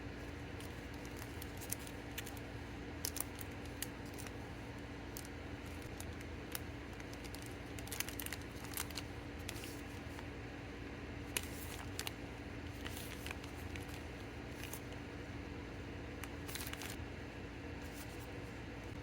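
Hands packing small orders: scattered light clicks, taps and crinkles of plastic packaging being handled, over a steady low hum.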